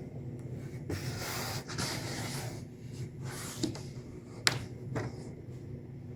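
Hands rubbing and pressing along a pressure-sensitive-adhesive rack rail on a plastic roto-molded cooler lid, bedding the tape down. There are two stretches of scuffing friction, then two sharp knocks near the end, the first the loudest, over a steady low shop hum.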